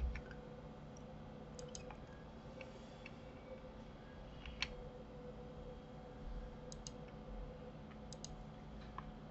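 Faint, scattered clicks of a computer mouse and keyboard, several coming in quick pairs, with one sharper click about halfway through, over a steady low hum.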